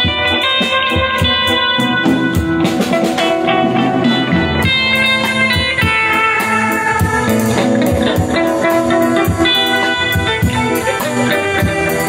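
Electric guitar played through an amplifier, picking melodic single-note lines, with a drum kit playing along: a live band sound check.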